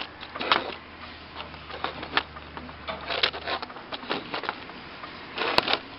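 Irregular clicks and knocks over a low hum, with a louder cluster of knocks near the end; the hum stops a little past halfway.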